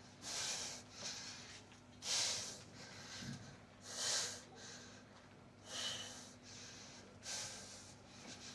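A man breathing hard and laboured, a sharp, hissing breath about every second and a half to two seconds, five in all.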